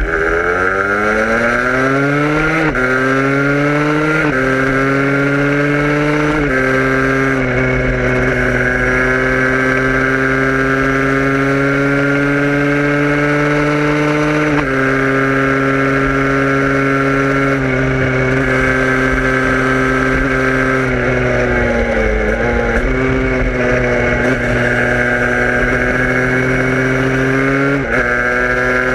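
Vehicle engine accelerating hard, shifting up three times in quick succession, each shift dropping the pitch before it climbs again. It then settles into a steady cruise, with a few more gear changes, a brief dip and recovery in the later part, and another upshift near the end.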